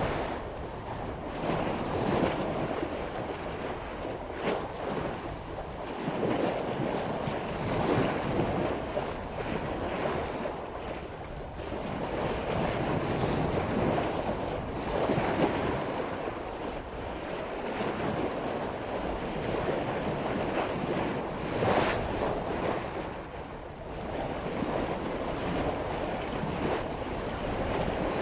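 Sea water rushing and splashing along the bow of a sailboat cutting through ocean swell at about 5 knots, surging and easing with each wave, with wind on the microphone.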